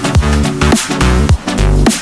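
Electronic music with a heavy bass line and a punchy, regular drum beat.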